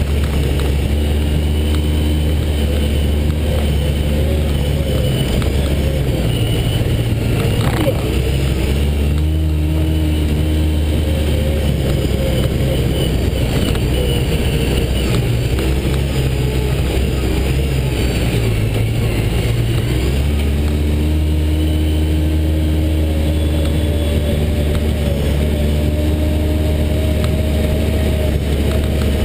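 Off-road vehicle's engine running steadily under way on a dirt track, its pitch shifting a few times, with rumble and wind noise on a hood-mounted camera.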